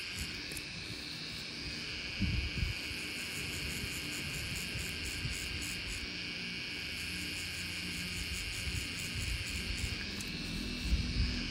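A tattoo machine buzzing steadily in a high, even tone as its needles pack red colour into the skin. A couple of brief low bumps come about two seconds in and near the end.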